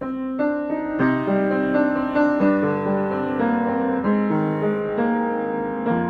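Background piano music: a steady run of notes that starts abruptly at the opening.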